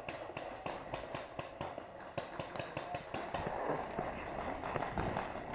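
Paintball markers firing: a steady run of short, irregular pops, several a second.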